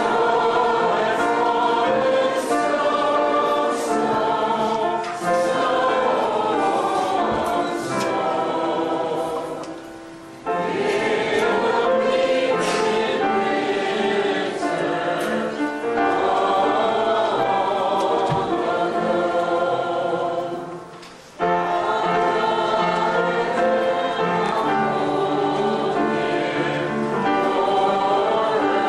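A choir singing a sacred piece in long sustained phrases, with brief breaks between phrases about ten and twenty-one seconds in.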